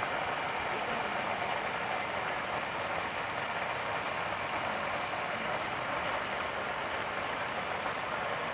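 Whole masala-coated chickens deep-frying in hot oil: a steady sizzling and bubbling.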